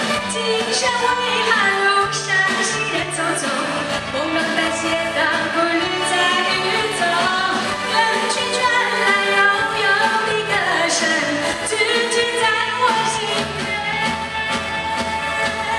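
Music: a Chinese Mandarin pop song, a voice singing a melody over band accompaniment with a steady bass line.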